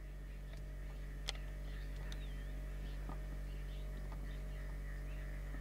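Quiet outdoor ambience over a steady low electrical hum, with faint scattered short chirps and clicks and one sharp click about a second in.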